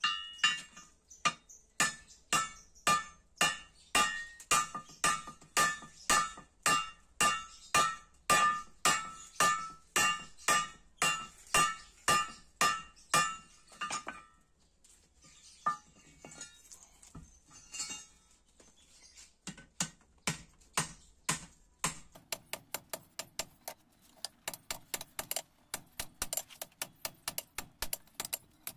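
Hand hammer forging red-hot steel on an anvil to draw out a sickle blade: steady blows about two a second, each with a ringing anvil tone. After a short pause of scattered blows, faster, lighter strikes follow, about four a second, near the end.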